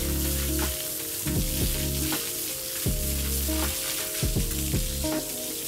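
Water from a hose spraying onto a bull's hide, a steady hiss, over background music with a regular bass beat.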